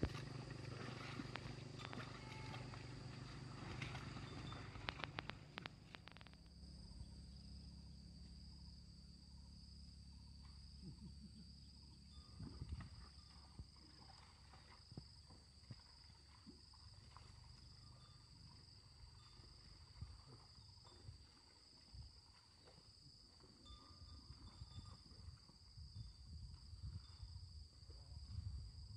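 Quiet rural field ambience: a steady, high-pitched insect drone, with a low rumble that drops away about six seconds in and a few faint scattered clicks.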